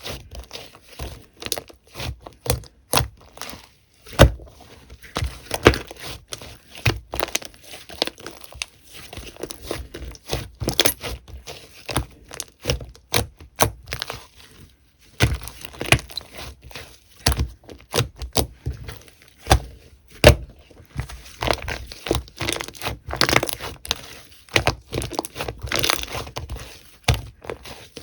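Slime being squeezed and pressed by hand, making many quick, irregular pops and clicks with a few sharper snaps.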